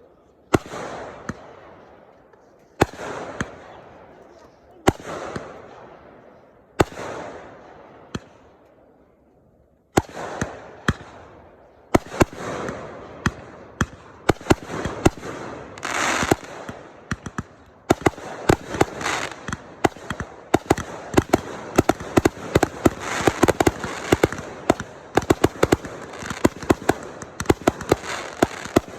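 Fireworks exploding: at first single sharp bangs about two seconds apart, each fading out in crackle, then from about ten seconds in a rapid barrage of bangs and crackling that grows denser and steadier.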